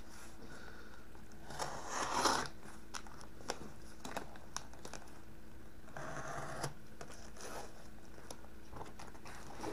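Cardboard shipping box and its packing tape being handled and worked at with a small metal tool: scattered light taps and clicks, with two short crinkling, scraping passes, about two seconds in and about six seconds in.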